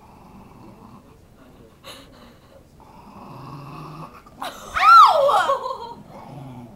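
Small dog growling in low rumbles, with one loud high-pitched cry that rises and falls about five seconds in.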